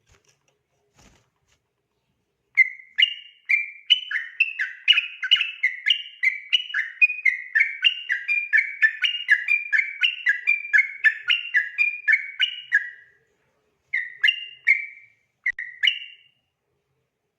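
Yellow-vented bulbul (trucukan) singing a long, fast run of whistled notes, the rapid 'ropel' song, for about ten seconds. Two short phrases follow near the end.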